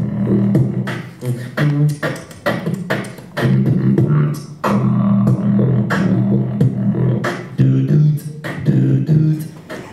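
Beatboxing into a handheld microphone cupped in the hands: sharp clicks and snare-like hits over a low hummed bass line.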